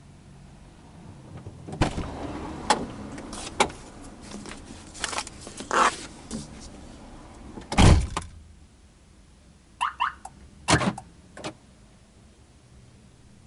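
Car driver's door opened, with rustling and several sharp clicks as someone reaches inside, then the door shut with a heavy thump about eight seconds in. Two short chirps and another thump follow a couple of seconds later.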